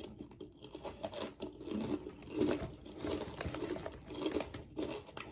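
Crunchy ridged potato chips being chewed with the mouth closed: irregular crunching with no steady rhythm.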